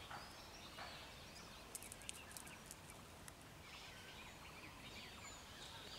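Faint open-air quiet with distant birds calling now and then, and a few light clicks.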